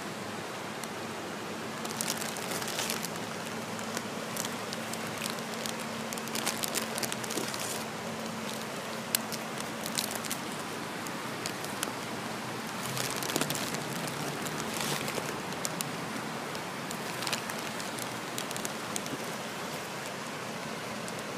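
Steady wet outdoor hiss of light rain and running floodwater, with scattered small ticks and crackles throughout.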